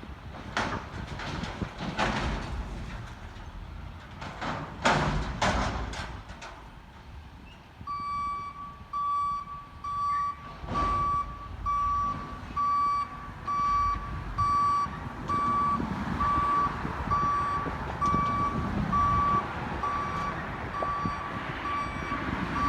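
Garbage truck's backup alarm beeping steadily about once a second while the truck reverses, starting about a third of the way in. Before it come a run of clanks and bangs over the truck's low running noise.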